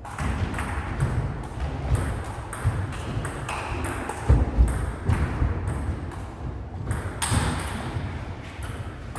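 Table tennis rally: the ball clicking back and forth off the bats and table, one bat faced with Dr Neubauer ABS frictionless anti-spin rubber. A couple of heavy thumps come about four and a half seconds in.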